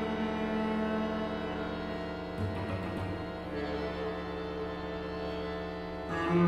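Cello and accordion duo playing contemporary chamber music: sustained held chords and bowed tones, with a new low note entering about two and a half seconds in and a louder entry near the end.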